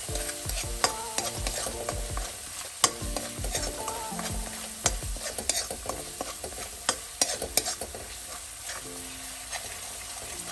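Steel ladle stirring thick tomato-and-spice masala frying in ghee in a metal kadai: a steady sizzle with frequent sharp clicks and scrapes of the ladle against the pan. The masala is fully fried and ready.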